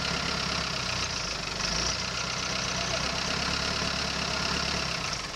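Canal tour boat's engine running steadily.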